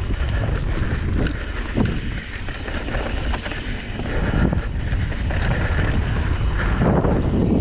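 Wind buffeting the microphone during a fast downhill descent, with the irregular knocks and rattles of the ride over rough ground.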